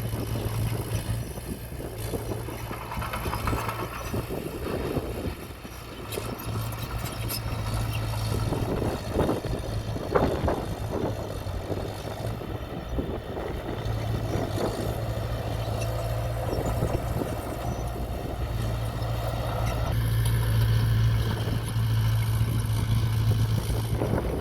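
Heavy earthmoving machine engine running steadily at work, with a spell of knocking and clattering about ten seconds in and a change in engine note near the end.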